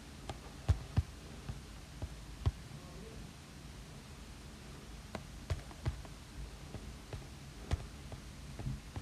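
Stylus tip tapping on an iPad Pro's glass screen while drawing: irregular sharp taps, a few clustered in the first few seconds and another run after about five seconds, over a faint low hum.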